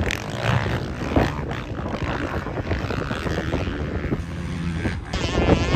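Motocross bike engines revving on the track, heard through heavy wind rumble on the microphone.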